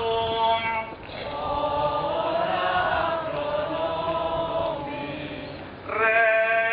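Procession hymn sung outdoors: a single lead voice holding a note, then many voices of the walking crowd singing together, and the lead voice coming back, louder and clearer, about six seconds in.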